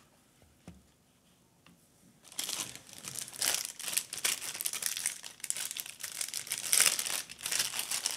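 Plastic packaging crinkling and rustling as it is handled, starting about two seconds in and going on irregularly to the end.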